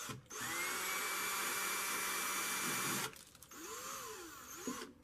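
Cordless drill motor spinning up with a quickly rising whine, running steadily for about three seconds and then stopping. A quieter, shorter stretch of sound follows.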